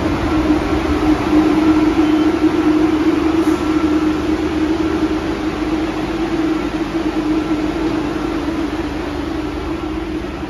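MBTA Red Line subway train at the platform, a steady hum with a faint thin whine above it, easing slightly as the train comes to a stop.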